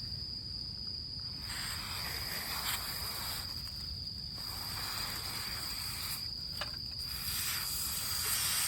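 Insects trilling steadily at one high pitch, with three long breathy hisses of about two seconds each, typical of someone blowing hard on smouldering embers to revive a damp campfire.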